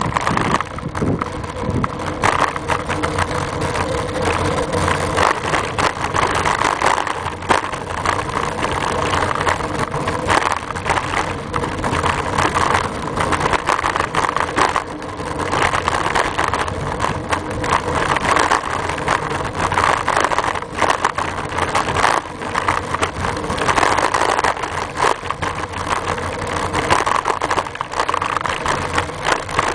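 Riding noise picked up by a camera on a home-made bike mount: a steady rush of road and wind noise with constant small rattles and knocks from the mount shaking.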